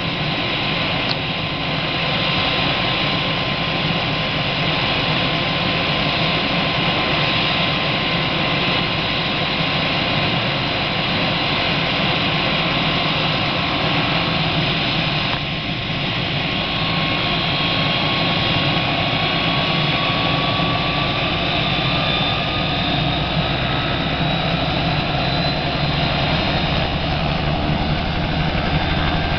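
Small helicopter running on the ground ahead of take-off: a steady, loud engine and rotor noise with a thin whine that slowly rises in pitch over the second half as it powers up.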